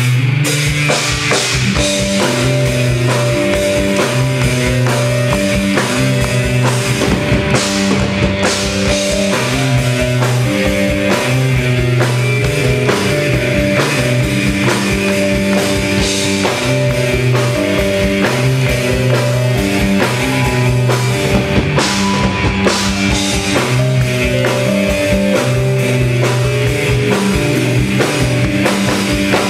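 Rock band playing live: a drum kit keeping a steady beat under sustained bass and keyboard notes, with no vocals.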